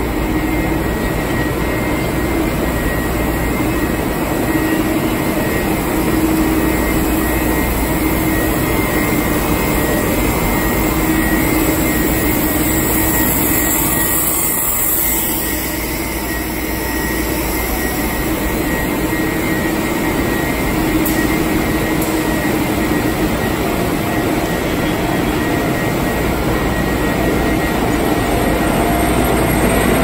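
Steady machinery noise of a power-cable extrusion line running: motors and drives of the take-up reel and belt haul-off humming, with a faint steady whine above.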